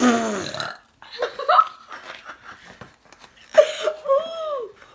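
A person burps loudly right at the start, the burp dropping in pitch, followed by short vocal sounds and a second loud burp-like sound about three and a half seconds in.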